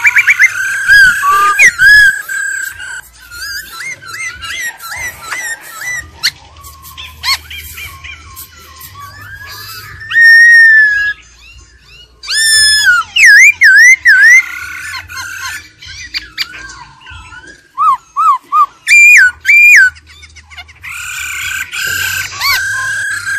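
Black-throated laughingthrush singing a loud, varied whistled song. Clear held whistles alternate with rising and falling slurs, quick trills and short repeated notes, and the loudest phrases come about ten seconds in, around thirteen seconds and near twenty seconds.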